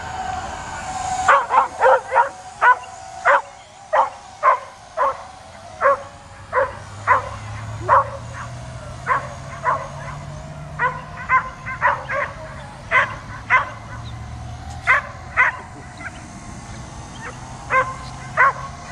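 A dog barking repeatedly at a drone flying overhead. It gives short, sharp barks about one or two a second, some in quick pairs, starting about a second in.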